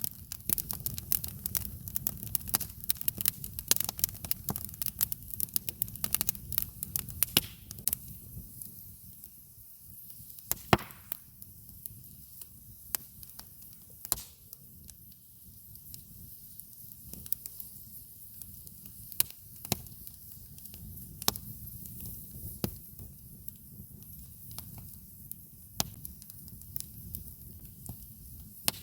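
Wood campfire crackling: a dense run of sharp snaps and pops over a low rumble, thinning out after the first third into scattered crackles with a few louder single pops.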